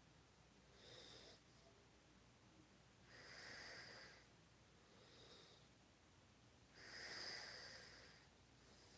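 A woman snoring faintly in her sleep, each breath a noisy rasp with no clear pitch. There are two long, louder breaths about four seconds apart, each followed by a shorter, softer one.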